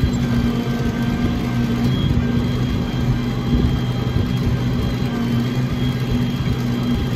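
Tractor engine running steadily with a constant low hum while it pulls a wheel hay rake, heard from inside the enclosed cab.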